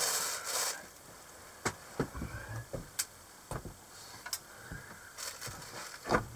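Perch being gutted and cleaned by hand with a knife: a brief rustle at the start, then scattered light clicks, knocks and scrapes of the knife and fish against the tabletop.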